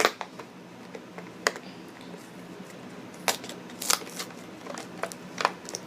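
Items and packaging from a subscription box being handled and opened: a scatter of sharp clicks and light rustles, about half a dozen, coming at irregular intervals.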